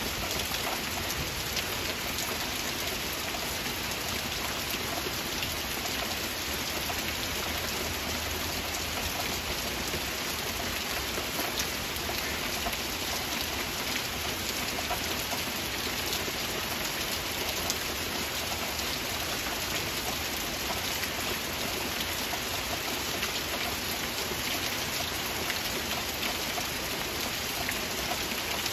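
Steady heavy rain: a dense, even hiss of falling rain with fine drop patter mixed through it.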